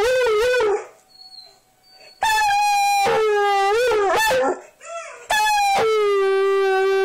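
A dog howling loudly in long, quavering howls in response to tornado sirens. One howl ends about a second in, a second starts higher and drops in pitch, and a third begins about two-thirds of the way through.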